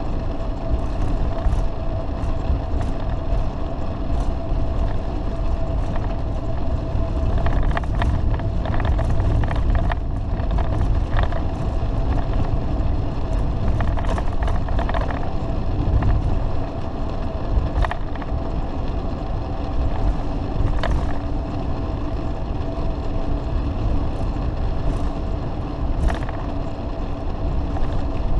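Fleetwood Flair Class A motorhome driving at highway speed, heard inside the cab: a steady engine and road drone with a faint steady whine and scattered small clicks and rattles.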